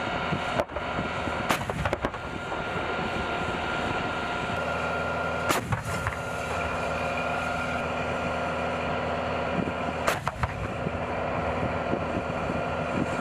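M109A6 Paladin 155 mm self-propelled howitzers firing: three sharp reports about four seconds apart, over the steady drone of the vehicles' running engines.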